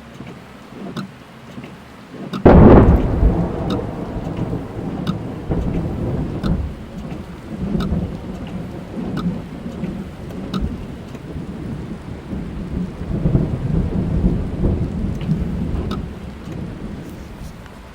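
Thunder heard from inside a car: a sudden loud clap about two and a half seconds in, then long rumbling that swells again near the end before fading. Rain patters on the car throughout.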